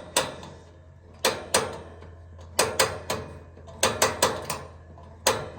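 Kerosene heater's wick-adjuster knob being turned to raise the wick, giving a series of sharp mechanical clicks in small groups of two to four.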